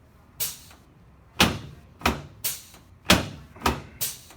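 Chiropractic adjusting on a treatment table: seven sharp knocks in about four seconds, coming at uneven intervals, some close together in pairs.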